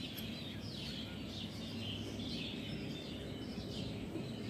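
Small birds chirping in short, irregular calls over steady background noise with a low hum.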